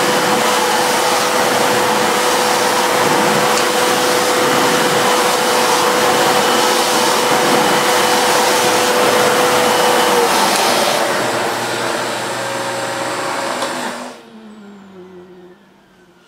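Sebo Airbelt C3 cylinder vacuum cleaner running with its electric powerhead on carpet: a loud, steady whir with a thin whine that stops about ten seconds in. About fourteen seconds in it is switched off, cutting out suddenly and winding down with a falling tone.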